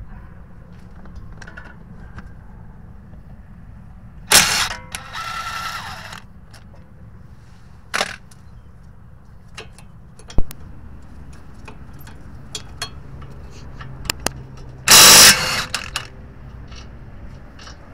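Cordless impact wrench hammering in two short bursts, about four seconds in and again near fifteen seconds, loosening bolts, with a softer whirr after the first as the loosened bolt spins out. Sharp clicks of the socket and tools in between.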